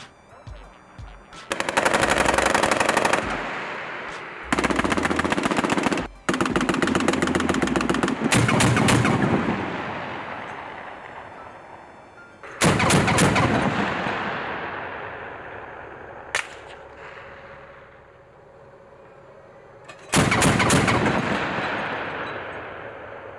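Stryker Dragoon's turret-mounted 30 mm cannon firing in several rapid bursts, each followed by a long echo that dies away, with a single sharp shot in the lull between bursts.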